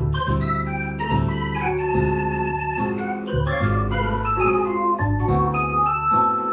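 Electronic organ playing held chords over a moving bass line, the notes sustaining without fading and changing every half second or so.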